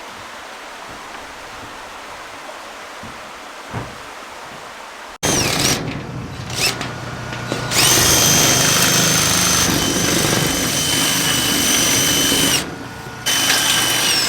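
Drill driving a Malco TurboShear attachment, cutting old barn roofing tin. After a few seconds of faint steady hiss, the motor whine rises and falls in a few short trigger pulls, then runs steadily for about five seconds with a short break near the end.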